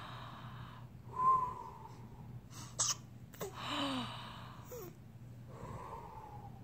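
A pet hiccuping: two sharp hics about three seconds in, with noisy breaths around them, and a short squeaky whine about a second in.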